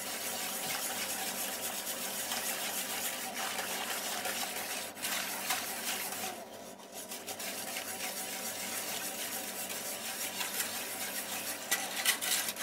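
Wire balloon whisk beating a thin roux-and-water sauce in a large stainless steel stockpot: continuous sloshing, with the whisk wires ticking against the pot's sides. It eases off briefly about six and a half seconds in.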